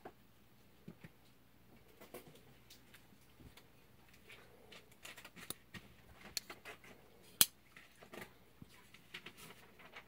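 Button lock folding knife with an aluminium handle and steel blade being handled in the hand: scattered light clicks and rubbing, with one loud sharp click from the blade action about three quarters of the way in.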